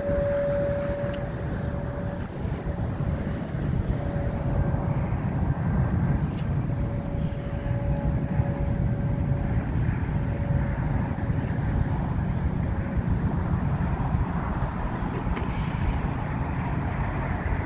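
Freight train rolling across a steel truss bridge at a distance: a steady rumble, with a thin steady tone that comes and goes over the first two-thirds.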